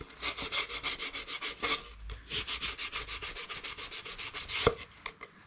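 Hand sanding: sandpaper rubbed in quick back-and-forth strokes, several a second, along the jigsaw-cut edge of a birch plywood blank to tidy it. The strokes pause briefly about two seconds in, and there is one harder stroke near the end.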